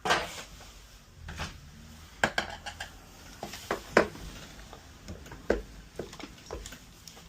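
Irregular clicks and knocks of a flathead screwdriver and hard plastic parts being worked inside an espresso machine while a plastic hose clamp is pried loose. The loudest click comes about four seconds in.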